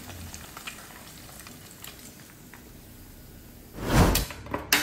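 Pork belly deep-frying in hot oil in a pot: a faint, steady sizzle with small crackles. A brief loud noise comes about four seconds in.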